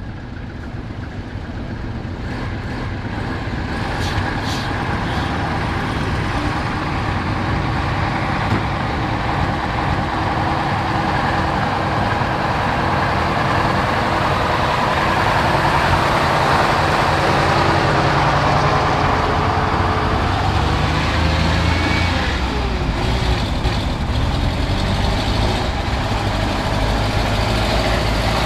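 Tractor engine running, growing louder over the first several seconds and then running steadily with a deep, even hum.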